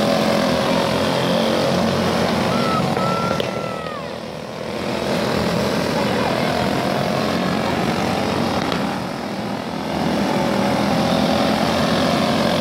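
Several small kids' racing kart engines running flat out as the pack laps the track. The buzz swells as the karts pass, fades twice as they move off, and comes back.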